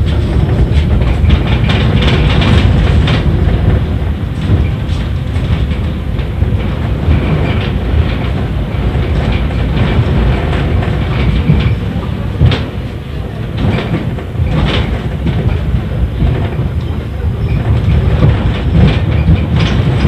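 Tram running along the track, heard from inside a 71-931 Vityaz tramcar: a steady low rumble of wheels on rails, with scattered clicks and knocks.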